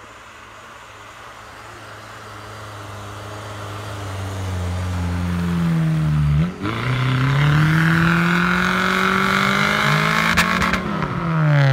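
Daihatsu Feroza's engine revving hard in deep snow, growing louder as it approaches. About six seconds in, close up, it is held at high revs with the wheels spinning in the snow, the revs rising and falling, then dropping near the end as the vehicle bogs down.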